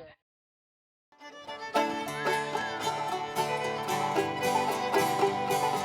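Old-time string-band music with rapid banjo picking and fiddle. It fades in after about a second of silence.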